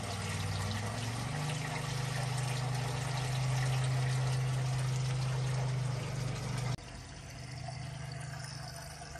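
Waste water pouring out of a motorhome's holding tank through its drain outlet, a steady gush with a low hum. After about seven seconds it cuts to a quieter hiss of tap water running from a hose into the motorhome's fresh-water filler.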